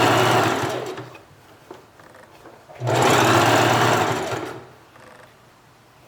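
Sewing machine stitching in two short runs: one stops about a second in, and the other starts near three seconds and runs for about a second and a half. It is sewing hair weft onto a wig cap.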